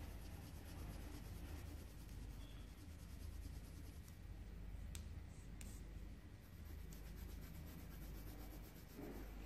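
Faint scratching of a coloured pencil rubbing on paper as a drawing is coloured in, with two light ticks about halfway through.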